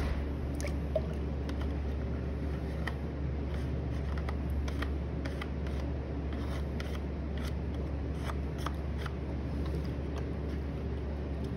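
Electric pottery wheel running with a steady low hum, with light, irregular clicks and wet slaps as hands and a rib work the spinning clay.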